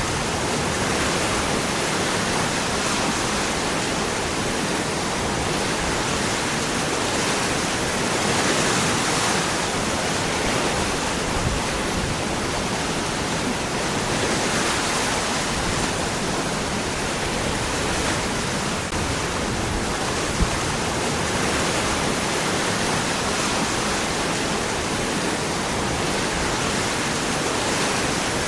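Waterfall: water falling and splashing among rocks, a steady dense rush.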